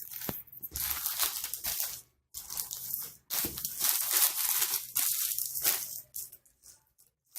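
Packaging of a courier parcel being handled, crinkling and rustling in three noisy bursts with short pauses between them.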